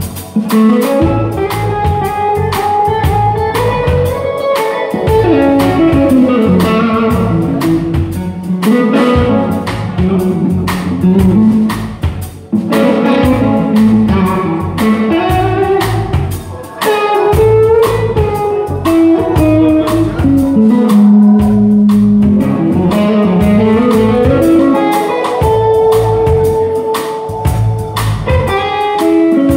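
Live blues band playing an instrumental passage: an electric guitar carries a lead melody over the drums and band.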